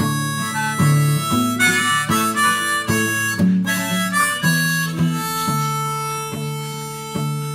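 Harmonica played from a neck holder over a strummed acoustic guitar, a short melodic run that settles into one long held note near the end.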